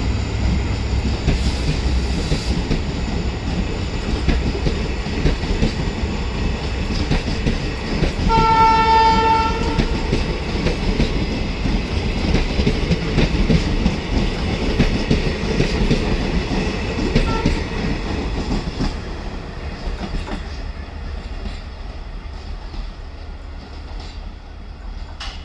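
Indian Railways WDP-4D diesel locomotive, with its two-stroke 16-cylinder EMD engine, pulling a passenger train away with a steady heavy hum. The horn blows once, about eight seconds in, for a second and a half. The sound fades away over the last few seconds as the train moves off.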